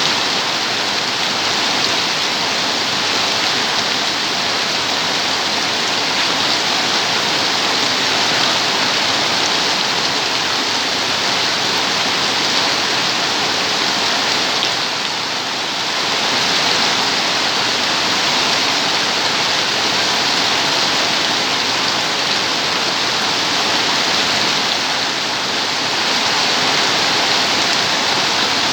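Steady rain falling and pattering on a surface, a continuous even hiss with slight swells and dips in intensity.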